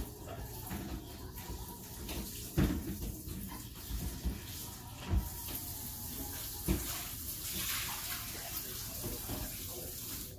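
A Cavalier King Charles Spaniel licking and nosing about on a cushioned dog bed, with a few soft thumps as she moves.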